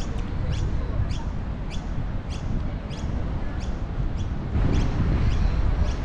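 A small bird calls in short, high chirps, about two a second. Under it runs a steady low rumble of wind on the microphone, which grows louder about three-quarters of the way through.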